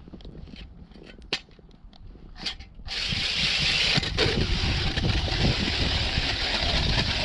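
Drill-driven ice auger boring through lake ice. It starts about three seconds in with a steady grinding scrape that keeps on to the end. A few sharp clicks come before it.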